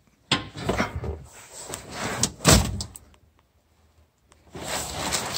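A person climbing into a 1970 Chevelle SS: rustling and shuffling, with a loud thump about two and a half seconds in.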